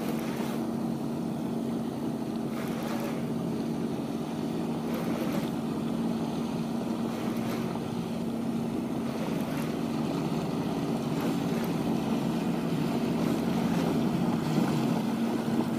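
Yamaha 9.9 GMHS two-stroke outboard motor running at a steady speed as the boat moves along, with wind and water noise, growing slightly louder near the end.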